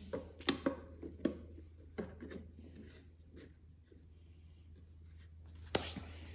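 A metal F-clamp being fitted and tightened onto a plywood turbine housing: a few light clicks and knocks of metal against wood in the first couple of seconds, then a sharper click near the end.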